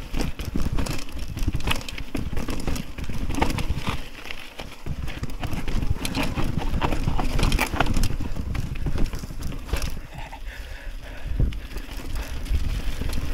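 Mountain bike rattling and knocking over a rough, stony path, with irregular clicks throughout and wind rumbling on the microphone.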